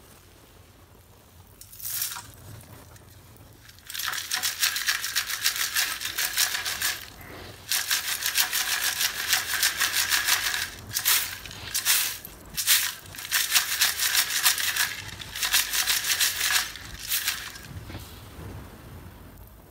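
Broken pieces of roasted multani mitti (Fuller's earth clay) rattling in a metal sieve as it is shaken in fast strokes, sifting off the fine dust. One brief shake, then from about four seconds in several bouts of a few seconds each with short pauses between.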